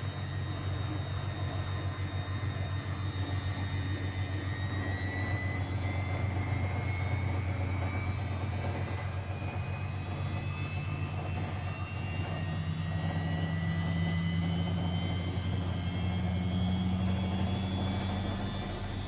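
Luxor WM 1042 washing machine spinning an unbalanced load. It gives a steady low hum and a motor whine that slowly rises in pitch as the drum speeds up.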